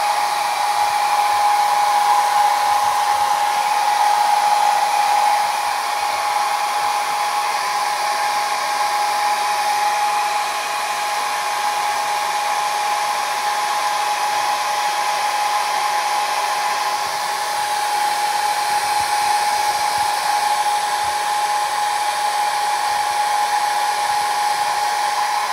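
Hand-held hair dryer running steadily: a rushing of air with a strong steady whine on top. It dips slightly in loudness a few times.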